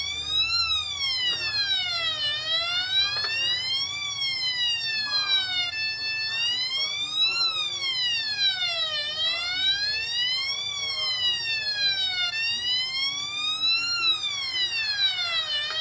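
Synthesized siren made in FL Studio's GMS synth with slide notes: a buzzy tone gliding up and down in a steady wail, each rise and each fall lasting under two seconds. The pattern restarts from its low point about six seconds in.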